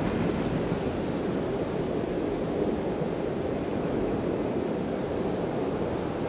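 Steady rolling noise of a long freight train of tank wagons passing, its wheels running on the rails.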